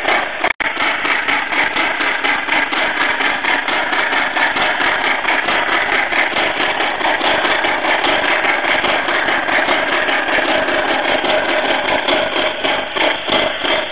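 Steam locomotive exhaust chuffs played by the DCC sound decoder through the small speaker of an O-scale SNCF 141R model locomotive, a steady rapid rhythm of beats as it runs. The sound cuts out for an instant about half a second in.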